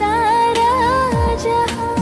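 Romantic Hindi film song music: a held melody line that bends and wavers in pitch, over deep drum hits that drop sharply in pitch, one about a second in and another near the end.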